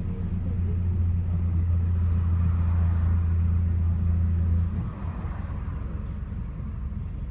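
Ataman A093H6 city bus in motion, heard from inside the cabin: its diesel engine drones steadily under load, then eases off just under five seconds in, leaving a lower road rumble.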